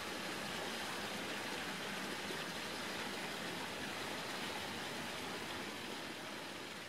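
Steady, even rushing noise, fading gradually near the end.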